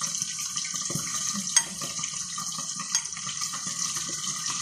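Fish pieces frying in plenty of vegetable oil under a glass lid: a steady sizzling hiss. Two sharp clicks cut through it, about a second and a half in and again near three seconds.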